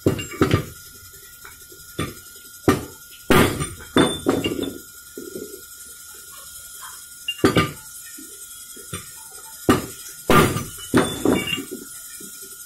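Steel motorcycle crankshaft parts (crank halves, crankpin and connecting rod) clinking and knocking against each other and against metal tools as they are handled and fitted by hand. There are about a dozen sharp, irregular metal clinks over a faint steady whine.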